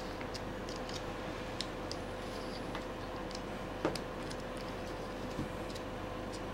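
Faint, scattered light clicks and taps of metal parts being handled as the Intratec AB10 pistol's end cap is turned against its spring pressure, over a steady hum. The sharpest click comes a little before the middle.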